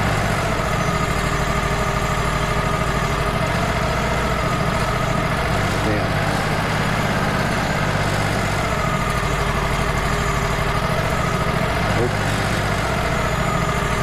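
Wood-Mizer LT35 hydraulic sawmill's engine running steadily at idle, with a higher whine that wavers up and down in pitch every few seconds.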